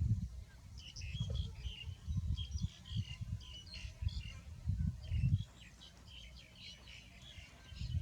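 Small birds chirping, a dense run of short high chirps throughout, over low rumbling bursts that stop about five and a half seconds in.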